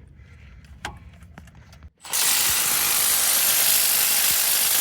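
A handheld power tool working a fastener on the brake assembly: it starts suddenly about two seconds in and then runs steadily and loudly.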